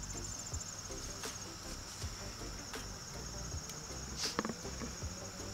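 Steady high-pitched trilling of an insect chorus, a continuous fine pulsing, with a brief rustle of the tomato plant being handled about four seconds in.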